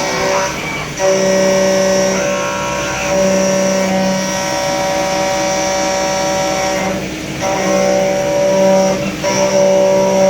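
Spindle of a BT30 CNC milling machine running while it cuts metal, a steady multi-tone whine that breaks off and comes back in slightly changed tones every few seconds.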